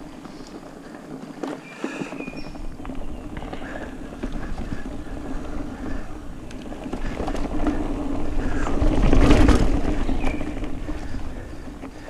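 Mountain bike being ridden along a dirt trail, with its tyres rolling and the bike clicking and rattling over the bumps. Wind noise on the microphone builds as the bike gathers speed and is loudest about nine seconds in, then eases.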